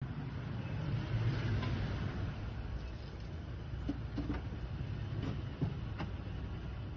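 Toyota Tacoma pickup truck running at low speed as it pulls up and stops, a steady low engine rumble. A few light clicks sound in the second half.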